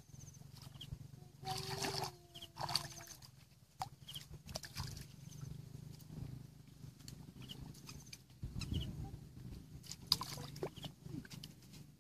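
Hands sloshing and squelching in shallow muddy water, groping in the mud for fish, with scattered small splashes and clicks.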